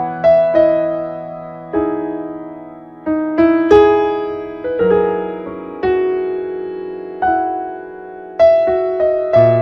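Slow solo piano background music: single notes and chords struck about once a second, each ringing out and fading.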